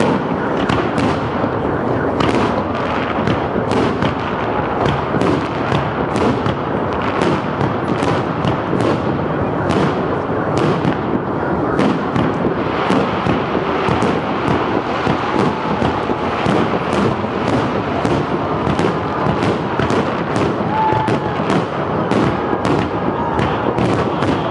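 Aerial firework shells bursting in a dense barrage: sharp cracks about twice a second over a continuous rumble of overlapping bangs, with no let-up.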